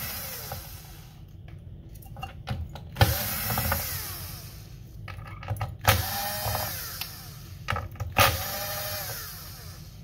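Cordless drill-driver backing screws out of an Xbox Series X's metal shield and power supply: three short runs of the motor, about every two to three seconds, each starting sharply and whining as it spins. A few light clicks come before the first run.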